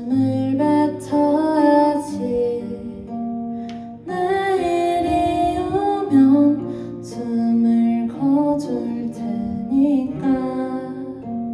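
Acoustic guitar playing with a woman singing over it: a song performance with held, gliding sung notes.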